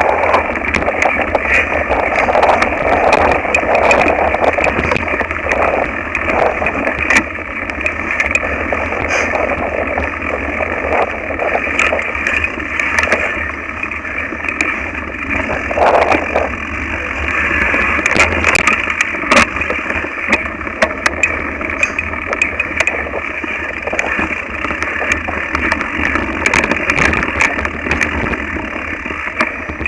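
Mountain bike ridden over a rough, stony dirt singletrack, heard through a handlebar-mounted camera: a continuous rattle and clatter of the bike and mount over the ground, with many sharp knocks from bumps and a steady low rumble of wind.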